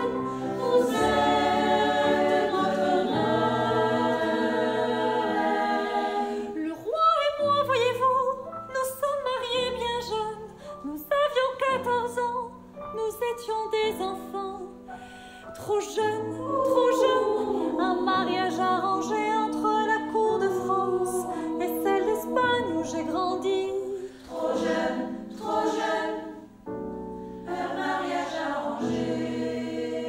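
Women's choir singing: held chords for the first six seconds, then a solo female voice carries a winding melody, with other voices joining in behind it.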